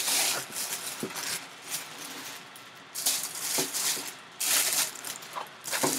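Tissue paper rustling and crinkling as it is pulled back in several handfuls.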